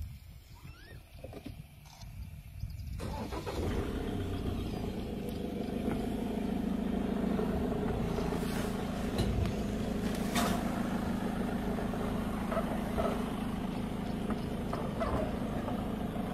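An open game-drive vehicle's engine starts about three seconds in and runs steadily as the vehicle moves off. There are a couple of sharp knocks partway through.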